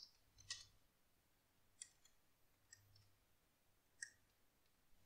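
Faint, sparse computer keyboard keystrokes: about five isolated key clicks, spaced half a second to more than a second apart, over near silence.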